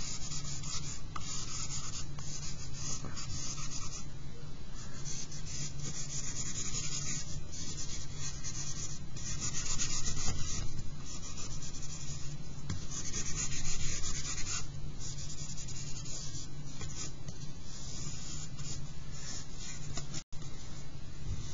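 Charcoal stick scraping and rubbing on drawing paper in irregular shading strokes, over a steady low hum. The sound breaks off for an instant near the end.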